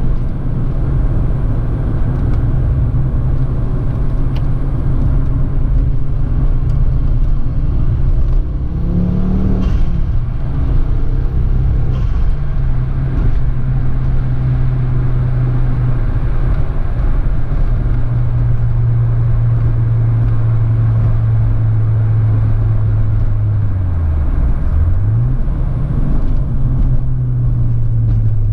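Ford Focus ST's turbocharged 2.5-litre five-cylinder engine running at steady revs while driving, with road noise. The revs rise briefly about nine seconds in and fall back, and dip and recover once near the end.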